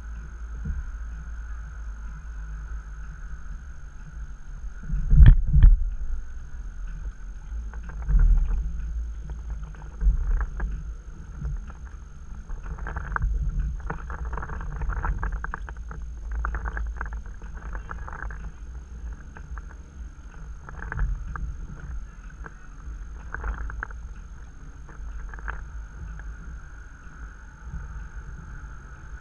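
Stand-up paddleboard paddle strokes dipping and splashing in river water at irregular intervals, over a steady low rumble of wind and water on the board-mounted camera's microphone. A loud double knock about five seconds in.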